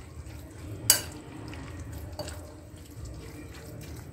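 Metal spoon stirring a wet oats batter full of chopped vegetables in a glass bowl: soft squelching and scraping, with one sharp clink of the spoon against the glass about a second in.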